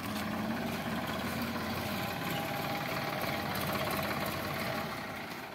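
Sonalika DI 745 tractor's diesel engine idling steadily, easing off slightly near the end.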